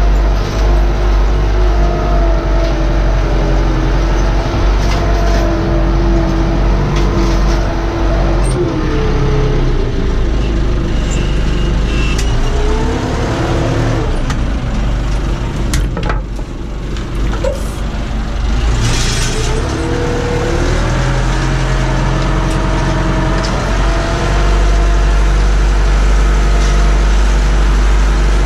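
Massey Ferguson 590's Perkins four-cylinder diesel engine running under load, heard from inside the tractor cab. Its pitch drops and picks back up twice in the middle as the engine speed changes.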